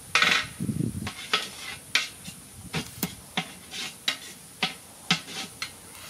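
Knife chopping dressed quail on a wooden log chopping block: a string of sharp knocks, about two a second, unevenly spaced.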